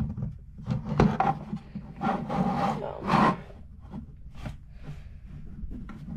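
Handling noise: an Eton Zoneguard weather radio and its power cord being plugged in, moved and set down on a wooden tabletop, with irregular knocks, rubbing and scraping, loudest from about two to three and a half seconds in.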